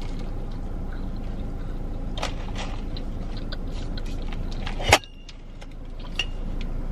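Steady low hum inside a parked car, with a few faint clicks and one sharp click about five seconds in, after which the hum suddenly drops and slowly comes back.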